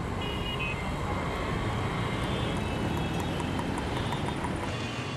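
City street traffic: a steady rumble and hiss of passing vehicles, with a few faint short high tones near the start and about four seconds in.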